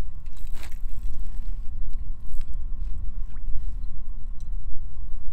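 Wind buffeting the microphone on open ice: a steady low rumble, with a sharp rustle about half a second in and a few faint clicks.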